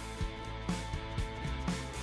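Background music with a steady beat, about two beats a second, over held notes.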